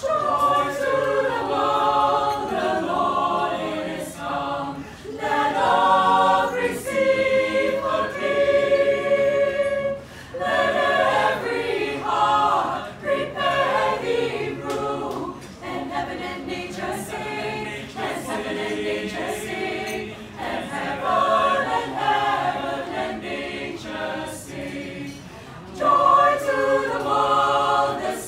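Mixed choir of men and women singing a Christmas carol a cappella, phrase after phrase with brief pauses for breath.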